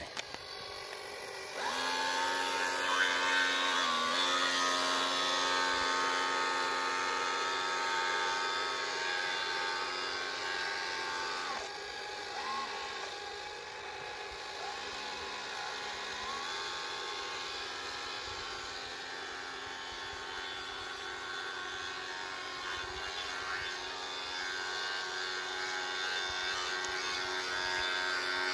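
Small electric motor of a radio-controlled model boat running with a steady high whine, briefly dipping in pitch twice near the middle as the throttle or steering changes.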